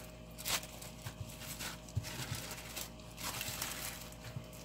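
Plastic film rustling and crinkling under hands that smooth and press it flat over a round of bulgur kubba dough, in soft irregular swishes.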